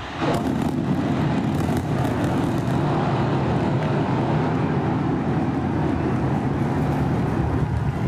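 Super Heavy booster's 33 Raptor engines igniting at liftoff: a loud, steady, deep rocket rumble that starts suddenly just after the start and holds on.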